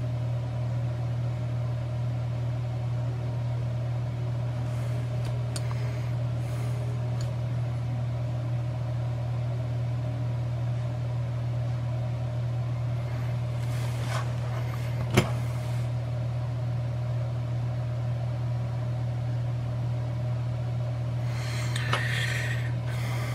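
Steady low mechanical hum running without change, with one sharp click about fifteen seconds in.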